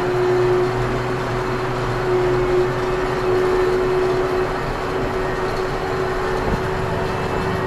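Ursus C-392 tractor's diesel engine running steadily under load while pulling a five-furrow plough, with a steady whine over the engine noise.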